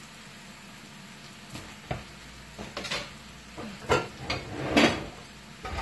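Metal pots, pans and lids clattering and knocking, irregular clanks starting about a second and a half in and loudest near the end, as pot lids are searched for. Under them, the faint sizzle of steak cooking in a cast-iron skillet.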